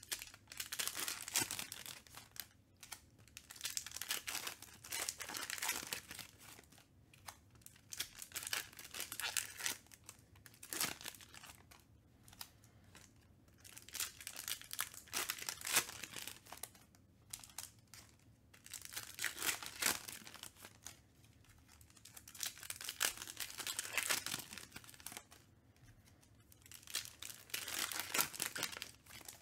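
Foil wrappers of Panini Donruss Optic basketball card packs being torn open and crinkled in repeated bursts a few seconds apart, between moments of the cards being pulled out and handled.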